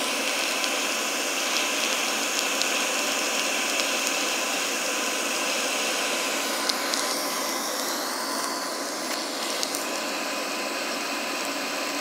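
Air blower forcing air into a burning coal forge's firepot: a steady whir and rush of air over the fire, with a few sharp crackles. Its tone shifts slightly about halfway through.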